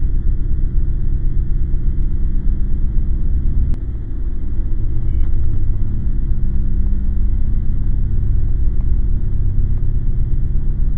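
Loud, steady deep rumbling drone carrying a few low hum tones; it dips briefly and shifts about four seconds in.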